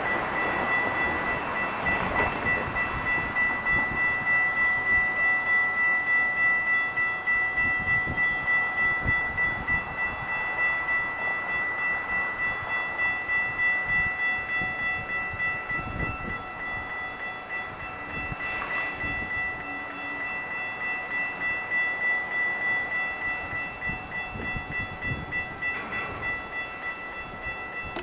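Railroad grade-crossing warning bell ringing steadily, about one and a half dings a second: the signal that a train is approaching.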